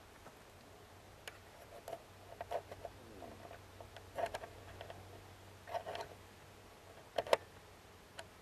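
Irregular short clicks and ticks from the camera being handled, the loudest pair about seven seconds in, over a faint low hum.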